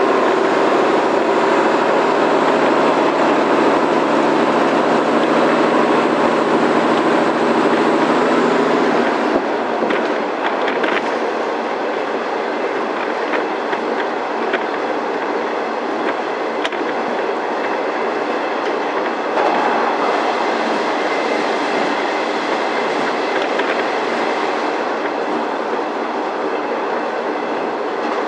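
Diesel railcar running along the line, heard from inside the carriage: a steady engine drone for the first nine seconds or so, then the engine note drops away, leaving wheel and track noise with clicks over rail joints.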